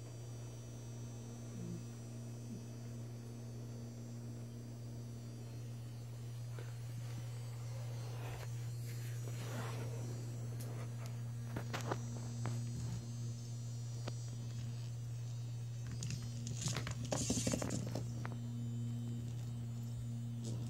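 A steady low electric hum or buzz, like a small motor or a fan, with a few light knocks and scuffs about halfway through and again near the end as the cat bats the toy on the tile floor.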